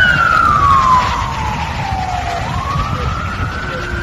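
Toy ambulance's electronic wail siren: a single tone that slides slowly down for about two and a half seconds, then sweeps back up.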